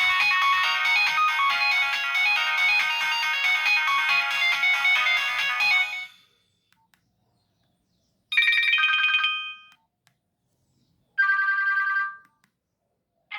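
Nokia 1616 mobile phone playing a polyphonic ringtone melody that stops about six seconds in. Then two short chime tones, each about a second long, play a few seconds apart.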